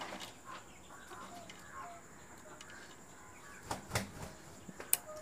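Faint clicks and taps of metal parts as an overlock machine is threaded by hand, with a few sharper ticks near the end, over faint bird chirps in the background.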